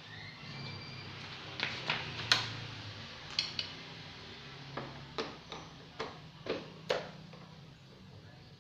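Irregular sharp metallic clicks and taps, about a dozen, from a hand tool working loose the bolts that hold a motorcycle's side body panel, over a faint low hum.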